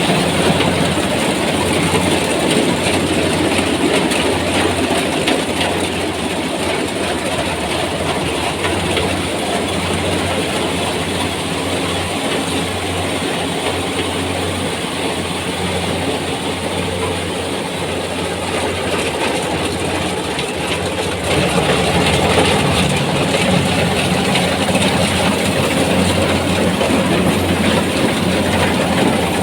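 Kubota rice combine harvester running steadily while harvesting, its engine and threshing machinery clattering; the sound gets suddenly louder about three-quarters of the way through.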